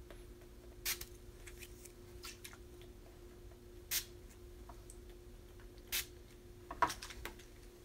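Makeup setting spray misted from a pump bottle: four short hissing spritzes, the last two close together near the end.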